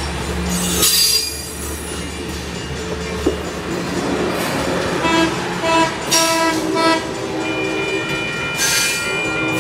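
Amtrak Pacific Surfliner passenger cars rolling past close by as the train arrives, wheels and rails clattering. From about five seconds in, the wheels squeal in broken high-pitched tones.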